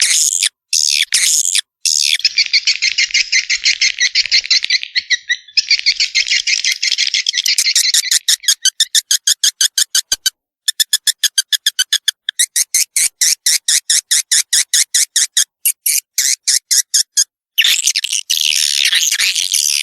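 Swiftlet lure-call recording: high swiftlet chirps and twittering, played to draw young swiftlets into a new nesting building. Dense twittering gives way to rapid, evenly spaced chirps at about five a second, which break off briefly near the middle. Dense twittering returns near the end.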